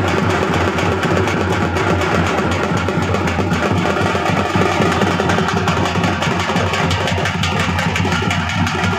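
Several large hand-held procession drums beaten with sticks, fast and continuously, making a dense, unbroken rhythm.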